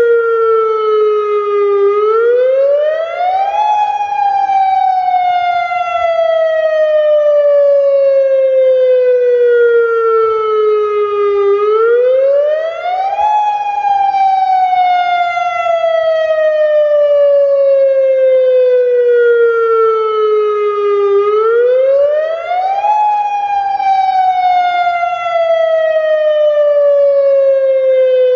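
Federal Signal Modulator electronic outdoor warning siren sounding its wail cycle for the monthly test. The pitch rises quickly over about two seconds, then slides slowly down for about eight, and this repeats three times.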